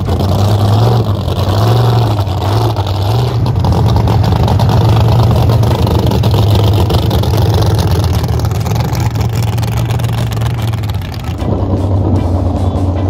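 Race jet boat speeding past at close range, its engine running hard under a loud rush of the water jet and spray. About eleven seconds in the sound dips and changes to a boat engine heard further off.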